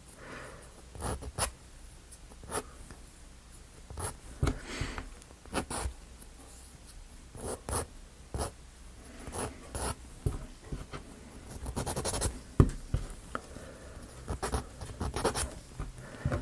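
Sandpaper rubbed by hand over small wooden model parts, in short, irregular scratching strokes.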